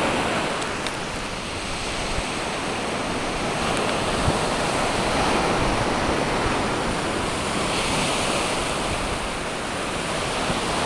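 Steady noise of small Gulf surf waves breaking and washing up the beach, with wind noise on the microphone.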